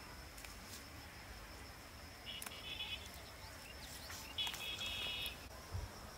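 Two short animal calls about two seconds apart, each a quick wavering cry, with a few faint clicks and a thin steady high tone behind.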